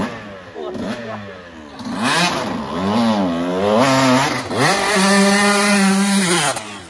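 Dirt bike engine revving hard on a hill-climb attempt, its pitch swinging up and down with the throttle, then held high for about two seconds before it drops away near the end.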